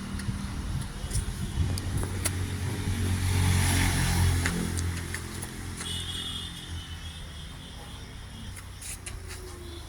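A motor vehicle's engine rumbling past, swelling to its loudest about three to four seconds in and then fading away.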